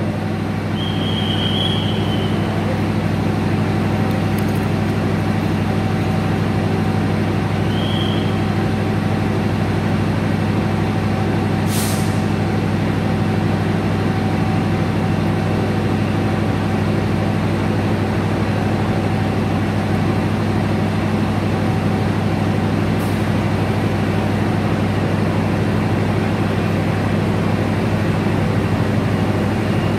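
Diesel-electric locomotive (KAI CC 206) engine running with a steady low hum as the locomotive moves slowly along the station track. Two short high squeals come early, and two sharp clicks come later.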